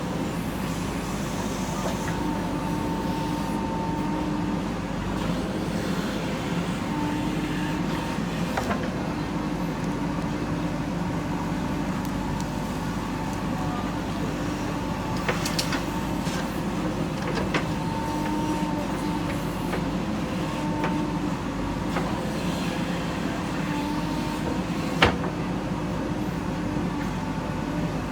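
JCB backhoe loader's diesel engine running steadily under working load, with a pitched whine that comes and goes, and a few sharp knocks, the loudest about 25 seconds in.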